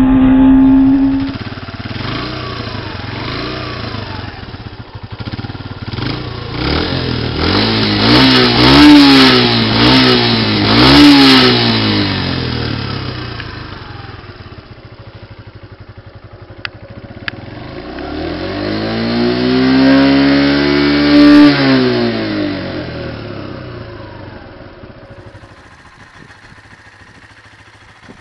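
Kawasaki Eliminator motorcycle engine accelerating hard through several gears, its note climbing and dropping back at each shift. Later it revs up and falls away once more before fading out.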